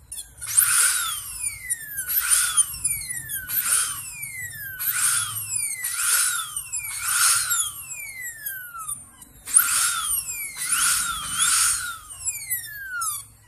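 Dental drill run in short bursts, about nine times, with a high whine that slides down in pitch as it winds down after each burst.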